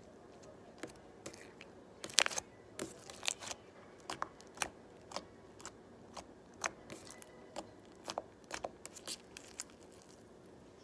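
Fluffy slime being stretched and poked by hand, giving irregular sharp pops and clicks, loudest about two seconds in.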